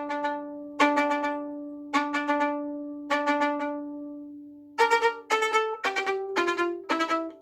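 Violin played with ricochet bowing: the bow is dropped on the string and bounces several times in one stroke, giving quick clusters of short notes. Three bounced groups ring on one note, then from about five seconds in faster groups move through changing pitches.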